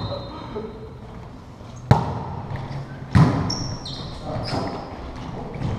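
A volleyball hit twice during a rally: a sharp smack about two seconds in and another hit about a second later, echoing in a large gym. Short high squeaks of sneakers on the wooden floor follow the second hit.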